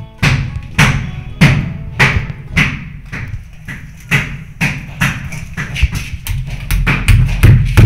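Hammer knocking a cabinet bolt into a tiled wall to fix a towel rail bracket, about two blows a second, each one ringing briefly.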